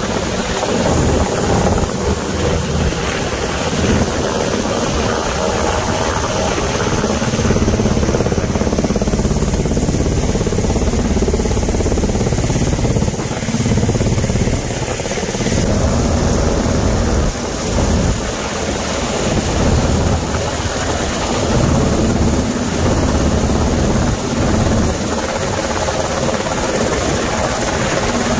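UH-60M Black Hawk helicopter hovering close by, its main rotor and turbines running loud and steady, with the low end surging and dropping unevenly throughout.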